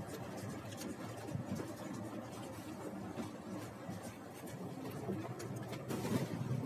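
Scania Irizar tour coach driving on a narrow, uneven road, heard from inside the cab: a steady low rumble of engine and tyres with frequent small clicks and rattles.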